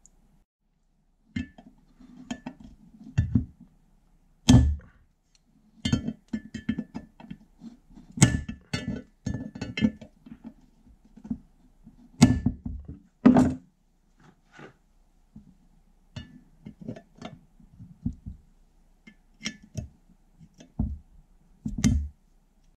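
Steel slip-joint pliers clinking and knocking against the rusty tin-plated barrel of a vintage meat grinder while gripping and working at a small pin in its rim. The sound comes as irregular sharp metallic clicks and clinks with short pauses between them.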